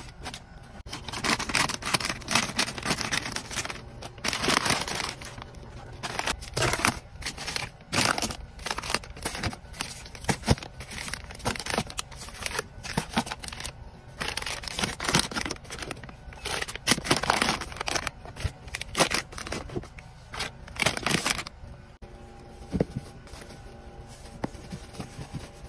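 Hands handling and setting down plastic-wrapped baby supplies: crinkling packaging and soft taps as boxes and wipe packs are placed on a shelf. The handling is dense and busy until near the end, where it drops to a quieter rustle as diapers go into a plastic bin.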